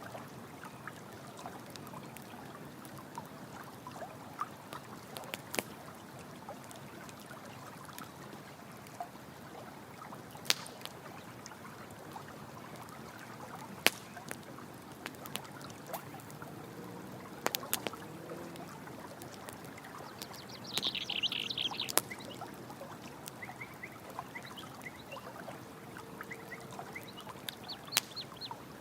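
Campfire crackling with scattered sharp pops over the steady rush of running stream water. About two-thirds of the way through, a short, high, rippling animal call is heard once.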